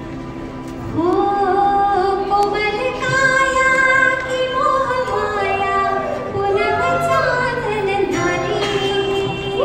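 A woman sings a Marathi film song through a microphone with a live band behind her. Her voice comes in about a second in with long held notes that slide between pitches, over a softer steady accompaniment.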